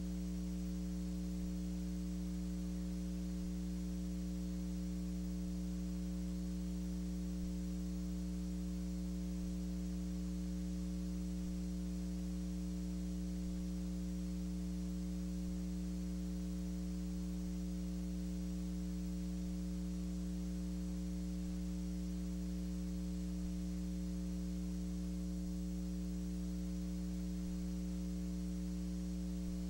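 Steady electrical mains hum with a faint buzz and hiss above it, unchanging; no sound from the filmed scene is heard. It is typical of a transfer of silent film.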